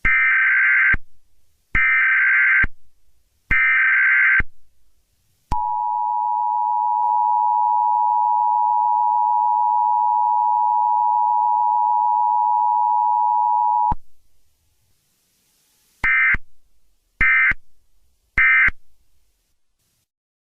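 Emergency Alert System tones: three bursts of data header warble, then the steady two-tone attention signal for about eight seconds, then three short end-of-message data bursts.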